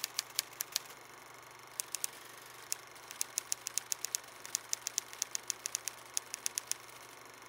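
Typewriter key clicks in quick, irregular runs, over a faint steady hum and hiss.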